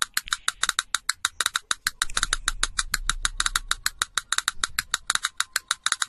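Rapid, even percussive clicks, about eight a second, with no other instruments or voice.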